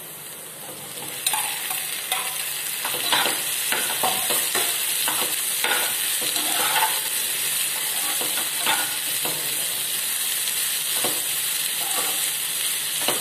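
Onions and half-boiled potato cubes frying in oil in a nonstick pan, sizzling steadily while a slotted spatula stirs them with frequent short scrapes and knocks on the pan. The sizzle grows louder about a second in, as the potatoes go into the hot oil.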